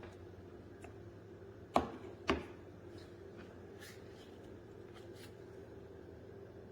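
Two sharp knocks about half a second apart over a steady low hum, with a few faint ticks.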